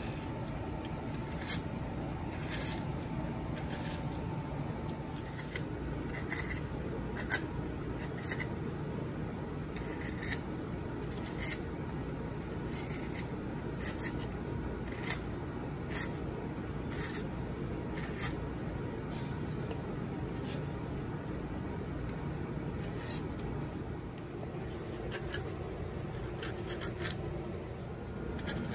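Beaver Craft woodcarving gouge cutting shavings out of a pine spoon bowl: a crisp slicing snick with each stroke, about one a second at an uneven pace.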